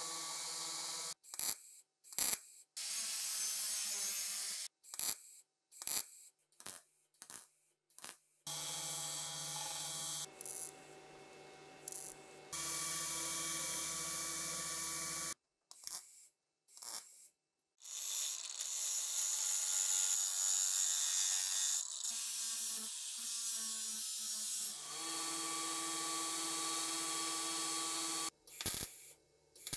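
Belt grinder running with a steady motor hum and a dense grinding hiss as rusty steel gun parts are pressed against the abrasive belt, in several separate passes that start and stop. The first several seconds hold a run of short, separate bursts of sound.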